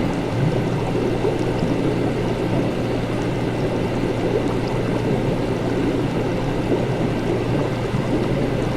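Laboratory ambience: liquid bubbling and gurgling steadily over a constant low hum.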